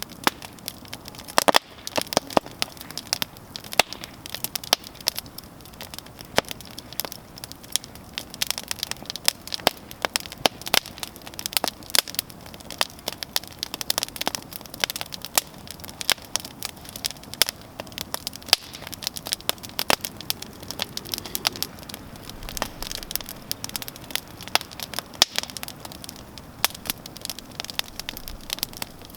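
Outdoor campfire crackling steadily, with frequent sharp pops and snaps of burning wood over a soft hiss of flame. One pop about a second and a half in is louder than the rest.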